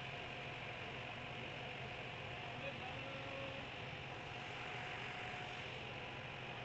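A river ferry's engine running with a steady low hum under a constant hiss.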